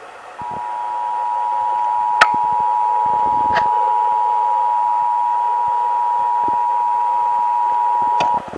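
Emergency Alert System attention signal: two steady tones sounding together as one harsh beep, starting about half a second in and cutting off sharply after about eight seconds. It announces a Required Monthly Test. Two sharp clicks sound over it.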